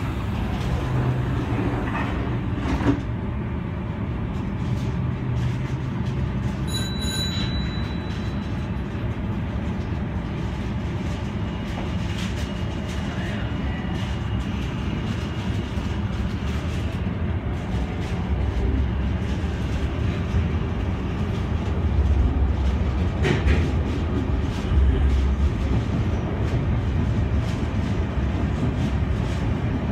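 Senboku Rapid Railway 7020 series electric train pulling out of the station and running along the line, heard from the front cab: a steady rumble of motors and wheels on the rails. A brief high tone sounds about seven seconds in, and the rumble grows louder near the end.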